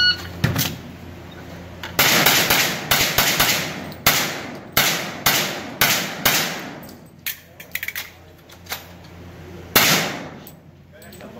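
Electronic shot timer beeps once, then a handgun fires a rapid string of shots starting about two seconds in, each shot echoing off the range walls. A pause with lighter clicks follows, and one more shot comes near the end.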